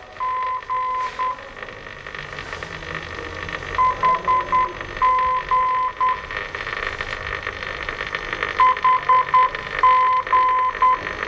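Electronic beeping at one steady pitch in a repeating Morse-code-like pattern of four short beeps, two long and one short, heard three times, over a steady hiss like radio static.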